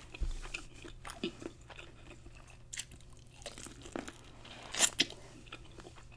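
Close-miked biting and chewing of a seasoned corn on the cob: scattered short mouth clicks, with the loudest bite about five seconds in.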